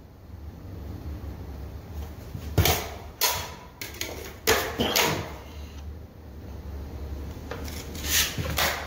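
Drywall taping knife scraping joint compound, about six short scraping strokes, several in quick pairs, over a steady low hum.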